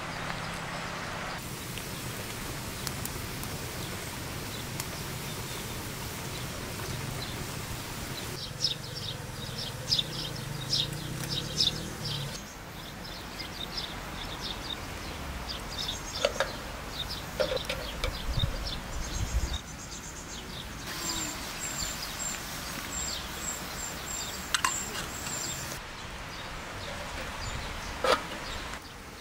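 Outdoor rural background of insects and birds, with a rapid high chirping for a few seconds in the last third. Scattered sharp clinks of metal and glass come as a kettle and teapot are handled, a few near the end as the kettle lid is moved.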